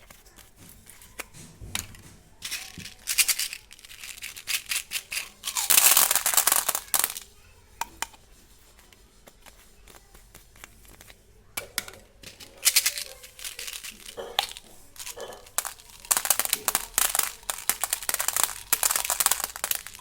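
Plastic candy wrappers crinkling and tearing as Gems packets are handled and opened, in clusters with quiet gaps between.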